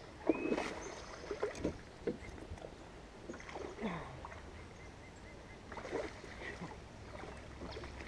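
Scattered splashing and sloshing in shallow water as a hooked striped bass is fought to the bank and the angler wades in, over a steady low murmur of the creek.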